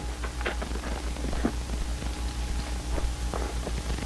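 Surface noise of an old film soundtrack: steady hiss with a low pulsing hum, and scattered clicks and crackles.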